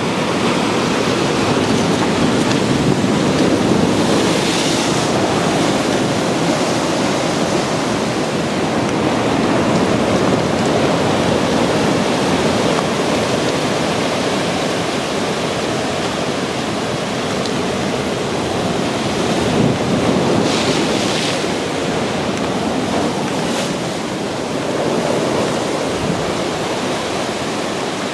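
Heavy ocean surf breaking and washing over lava rocks: a continuous rushing of white water that swells a few times as bigger waves come in.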